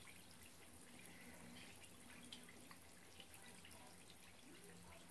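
Faint fizzing of a gingerbread-man bath bomb dissolving under bathwater, a soft hiss with scattered tiny pops.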